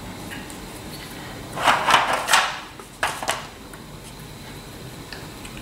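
Hard plastic parts of a molecular model kit clattering and clicking as they are handled, rummaged in their plastic box and pushed together. The main clatter comes about a second and a half in, with a shorter one about a second later.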